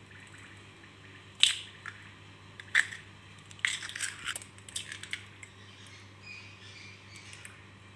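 Two eggs cracked one after the other against the edge of a bowl: sharp knocks of shell on the rim and the crunch of the shells breaking open, with a quicker run of cracks near the middle.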